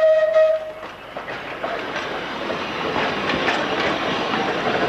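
Vintage Sóller electric tram rolling past close by, its wheels clattering on the street rails and growing louder as it nears. It opens with a brief steady high note, about a second long.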